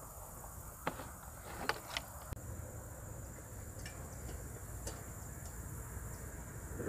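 A few light metal clicks and taps as a small kettle is handled and set onto a wood-burning camp stove, over a steady high insect drone and a low rumble.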